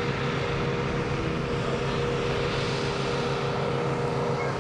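Extra 300 aerobatic plane's six-cylinder Lycoming engine and propeller droning steadily in flight, holding one pitch throughout.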